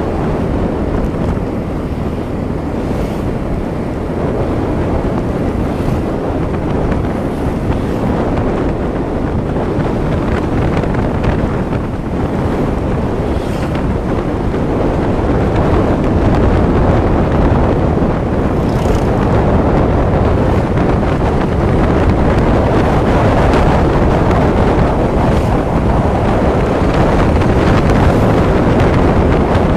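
Loud, steady rushing noise with a low rumble beneath it, the kind that wind on the microphone makes, getting a little louder about halfway through.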